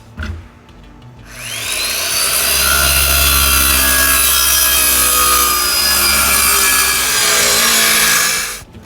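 Power saw cutting through a plywood deck board. The motor spins up with a rising whine about a second in, runs steadily through the cut for about seven seconds, and stops suddenly near the end.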